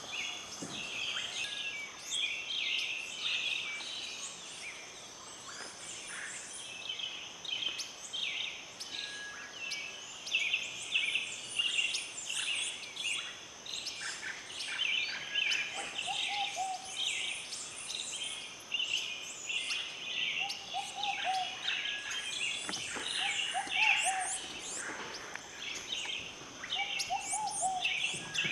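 Amazonian forest bird chorus: many birds chirping and trilling over one another, over a steady high-pitched drone. A few short, low, falling whistled notes come in during the second half.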